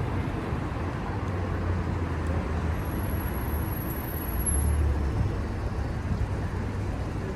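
Road traffic: motor vehicles driving past with a steady low engine rumble over tyre and street noise, swelling briefly about four and a half seconds in.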